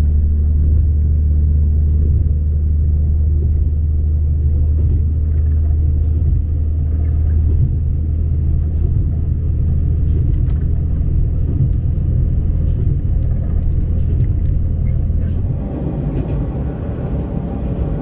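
Steady low drone of a diesel railcar's engine under way, heard from inside the carriage along with rolling wheel noise. About three-quarters of the way through, the drone drops away and a lighter, noisier running sound carries on.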